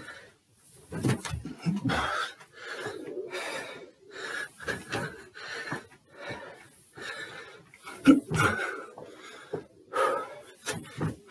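A man breathing hard and fast from exertion during a stair workout, a noisy breath about every second. A few footfall thuds on the stairs, the loudest about eight seconds in.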